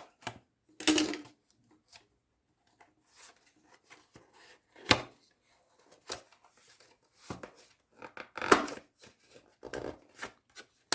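A cable's packaging being opened by hand: irregular scraping, rubbing and sharp clicks, with louder rasps about a second in, near the middle and near the end. The packing is strong enough to make it hard going.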